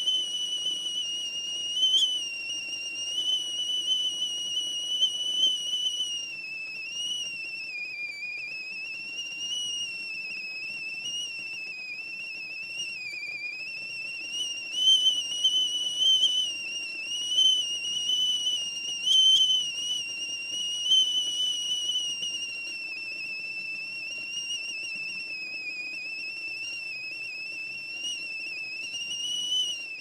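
Tea kettle whistling at the boil: one high, steady whistle that wavers slightly in pitch, with brief louder swells, over a faint low rumble.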